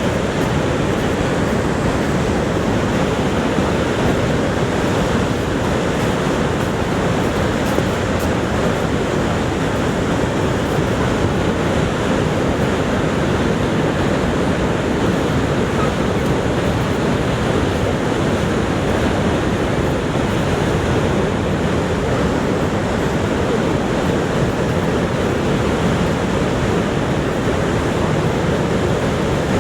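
Niagara Falls: the steady, unbroken rush of a great volume of falling water, deep and even throughout.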